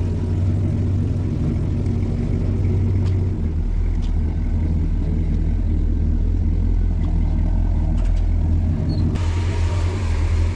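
Pickup truck engine and exhaust running with a steady low rumble. Its pitch drops about three seconds in, and a hiss like wind or road noise comes up near the end.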